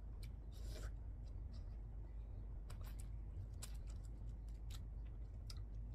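Crisp fried shrimp being handled and bitten: scattered sharp crackles and clicks at irregular intervals, with a short crunchy burst about half a second in, over a low steady hum.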